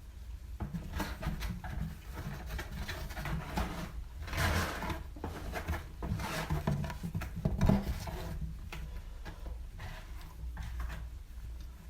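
Close-up eating sounds: chewing and picking at the last of a halal snack pack of doner kebab meat, cheese and chips. It comes as irregular soft clicks and rustles, louder about four and a half and seven and a half seconds in.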